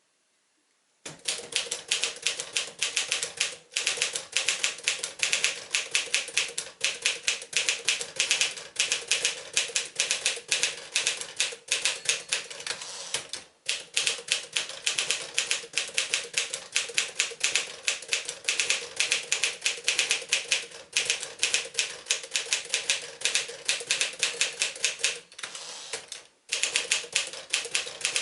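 1958 Smith-Corona Silent-Super manual portable typewriter being typed on at a brisk pace: a fast run of key strikes starting about a second in, with a few short pauses.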